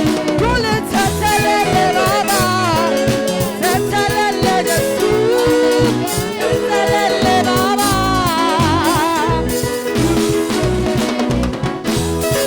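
Gospel praise music: a vocalist singing with a wide vibrato over a band with bass and a steady drum beat.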